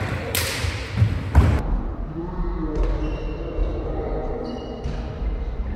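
A basketball bouncing and thudding on a sports-hall court, with two heavy thuds about a second in, then quieter knocks as play moves on, in an echoing hall.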